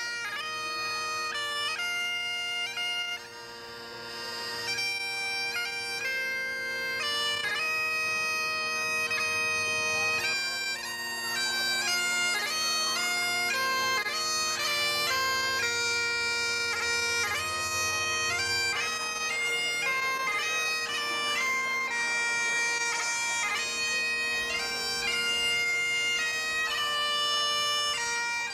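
Bagpipes playing a tune of held, changing notes over their steady drones. Part of the low drone sound drops out about two-thirds of the way through, and the melody carries on.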